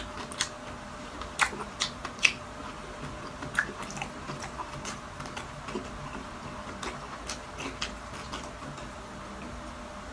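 Close-miked chewing of crispy deep-fried food, irregular sharp crunches and mouth clicks, the loudest crunches in the first few seconds.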